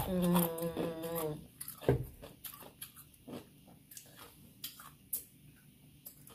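A wavering, hummed moan in the first second and a half, then sharp scattered crunches of ice cubes being chewed.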